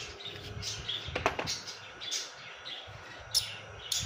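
Small birds chirping in the background, with a few sharp clicks as a flat screwdriver works the scooter's brake-lever pivot screw: one about a second in and two near the end.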